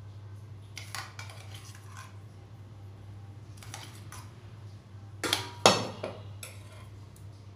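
A metal spoon scraping and tapping against steel bowls as thick mango paste is scooped out onto flour, with a couple of sharper clinks about five and a half seconds in.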